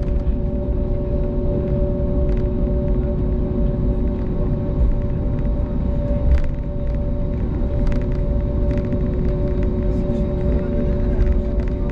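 Cabin noise of an Airbus A220 taxiing, heard from a window seat by the engine: a steady low rumble under a two-note hum from its Pratt & Whitney PW1500G geared turbofans, with a few faint ticks.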